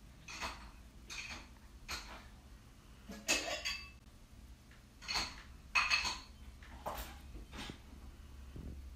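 Irregular short clinks and clatters of small hard household objects, about eight in all, over a faint low steady hum.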